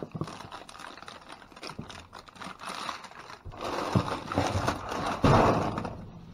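Plastic bags rustling and crinkling as things are handled and sorted, with irregular knocks and clicks; a louder, denser rustle builds from about four seconds in and peaks a little after five seconds.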